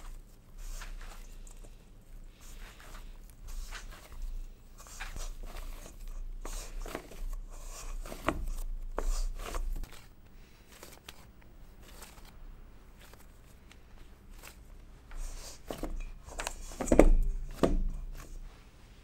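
Hands kneading a sticky dough of boiled taro and glutinous rice flour in a stainless steel bowl: irregular soft squishing and crumbly rubbing strokes, with a couple of louder thumps near the end.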